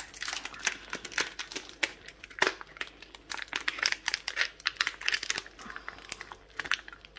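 Packaging crinkling with many irregular crackles as it is handled and pulled open by hand.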